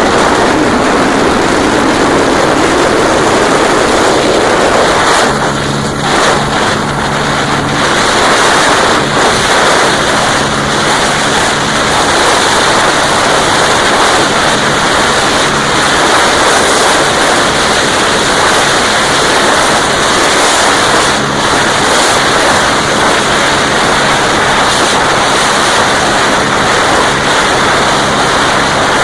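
Heavy wind rushing over the microphone at speed, over the steady, sustained note of a Honda Dream C100's small single-cylinder four-stroke engine running flat out through a Roncar aluminium exhaust during a top-speed run.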